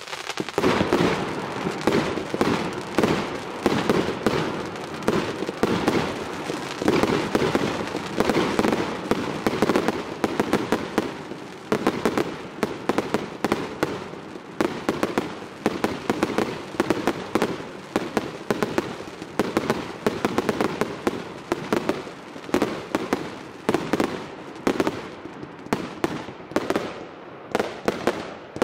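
Fireworks display firing without a break: a rapid, dense stream of sharp bangs, several a second, that starts suddenly.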